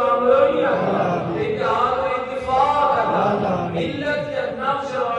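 A man's voice chanting Islamic religious verse in a drawn-out, sung style into microphones, with long held notes.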